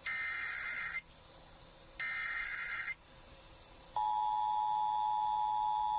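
Emergency Alert System signal on FM radio: two one-second bursts of buzzing SAME header data tones, a second apart, carrying the coded alert. About four seconds in, the steady two-tone EAS attention signal starts, the alarm that comes before a spoken tornado warning.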